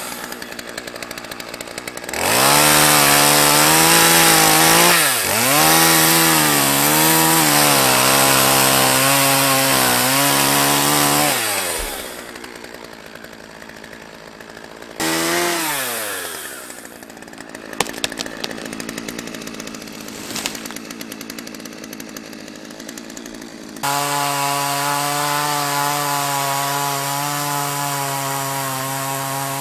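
Gas chainsaw felling a tree: it runs at full throttle under load for about ten seconds, its pitch sagging slightly as it bites, then drops to idle. After a short rev it idles while a few sharp cracks come from the trunk as it is pushed over. Near the end it goes back to full throttle to cut the fallen log.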